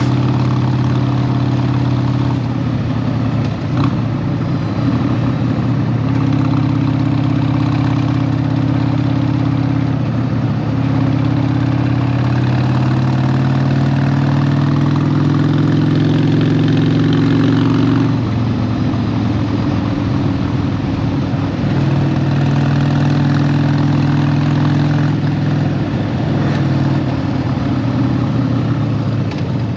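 Harley-Davidson 1200's V-twin engine running under way, its pitch rising and falling with throttle and gear changes: a long climb in pitch drops off suddenly about two-thirds of the way through, then it settles into a steadier run.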